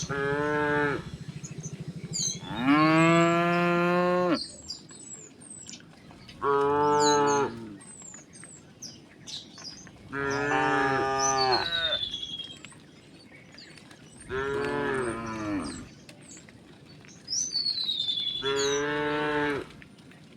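Cows mooing: six long moos a few seconds apart, the second the loudest and the fifth falling in pitch at its end. Small birds chirp in between.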